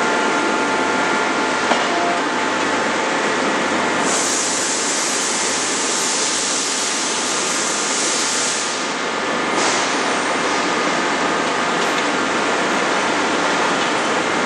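Closed-die forging press running with a steady mechanical din and faint whine. About four seconds in a high hiss starts, lasts about five seconds, and cuts off suddenly. A single sharp click comes just under two seconds in.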